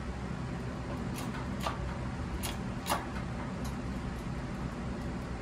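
A steady low mechanical hum with a few short, sharp metallic clicks, about five of them in the first four seconds, as the handle of a 20-ton bottle jack on a shop press is pumped to press a U-joint into an axle-shaft yoke.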